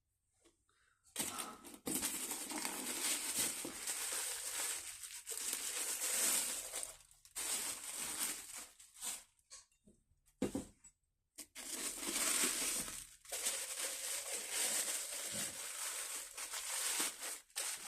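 Wrapping being crinkled and crumpled by hand while glasses are unwrapped, in long rustling stretches broken by a couple of brief pauses.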